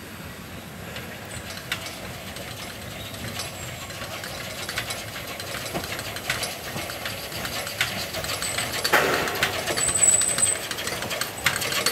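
Narrow-gauge 2-6-2 tank steam locomotive hissing steam, with irregular metallic clicks and clanks. The hiss swells into a louder burst about nine seconds in.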